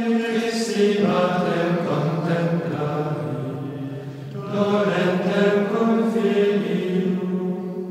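Slow sung chant: a vocal melody of long held notes, with a short break about halfway through before the next phrase begins.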